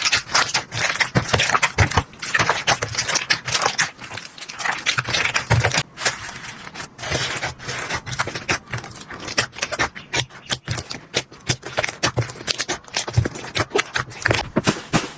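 Slime being squished and worked by hand, giving a dense, irregular stream of sticky clicks, pops and crackles.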